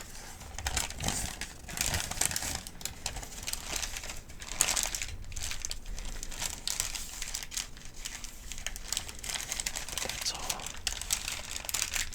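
Paper medication guide sheets being crinkled and handled: a continuous crisp crackling and rustling, with a few louder crackles about two and four and a half seconds in.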